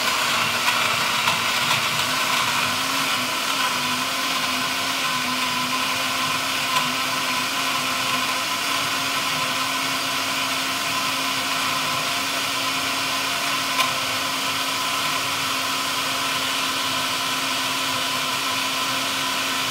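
Electrolux countertop blender running steadily on its highest speed setting, blending mulberries with ice, with a steady motor hum.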